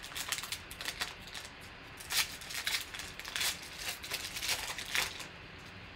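Foil wrapper of a Donruss Optic basketball card pack being torn open and crinkled by hand, in irregular crackling bursts that stop about five seconds in.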